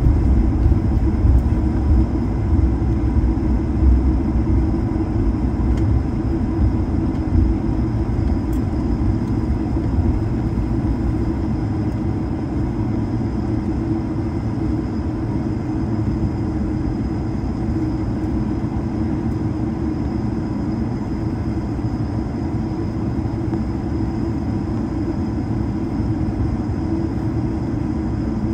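Inside the cabin of an Airbus A220-300 taxiing onto the runway: a continuous rumble from the wheels and idling engines, uneven over the first several seconds and smoother after, with a thin steady high whine above it.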